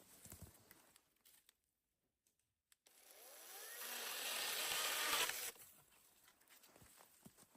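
Electric chainsaw running for about two and a half seconds, swelling up and then cutting off suddenly, after a few seconds of near silence.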